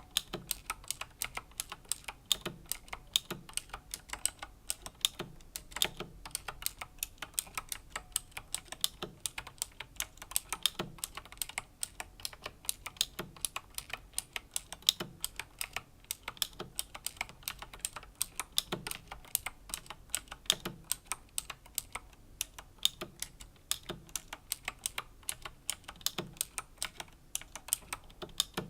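Slow typing on a Razer BlackWidow Chroma V2 mechanical keyboard with clicky Razer Green switches: an uneven run of sharp key clicks, several a second, with a deeper, heavier key strike every second or two.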